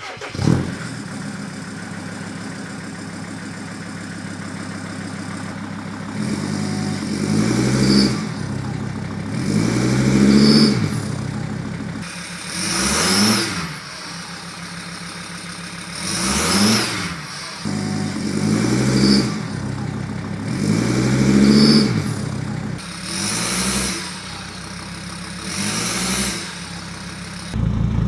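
Turbocharged Sprinter van engine running through a newly fitted straight-pipe exhaust. It idles, then is revved and let fall back about eight times, each rev briefly rising in pitch and loudness.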